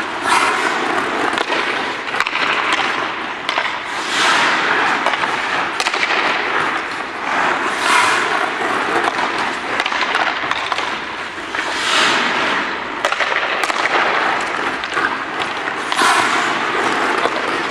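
Hockey skate blades scraping and carving on rink ice, the scrape swelling about every four seconds, with scattered sharp clacks of sticks passing a puck.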